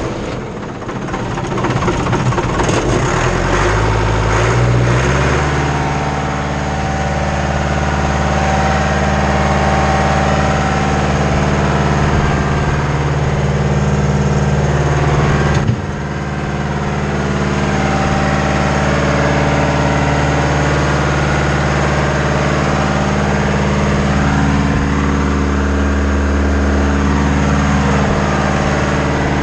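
Engine of a 1989 Schwing BPA750 concrete pump running. Its pitch climbs over the first few seconds, then holds steady, with a short break about halfway through.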